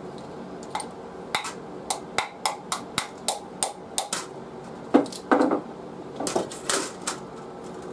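A wooden dowel tapping sharply on an aluminium Lee slug mold, about three taps a second, to knock the cast lead slug loose. Near the middle come a few louder clattering knocks as the slug and sprue are knocked out into an aluminium pie plate.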